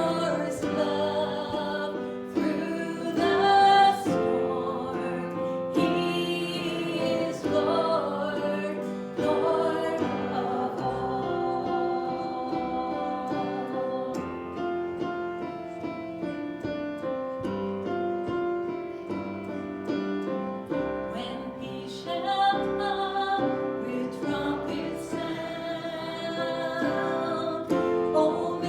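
Congregational worship singing with a piano or keyboard accompaniment, a slow hymn-like song.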